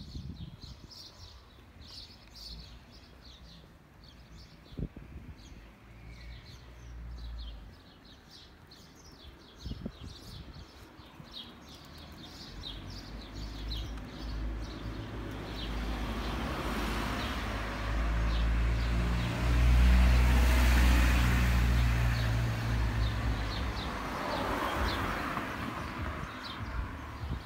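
Small birds chirping repeatedly, then a car comes up from behind: its engine and tyre noise grow steadily louder to a peak about two-thirds of the way through, and it passes and pulls away up the street.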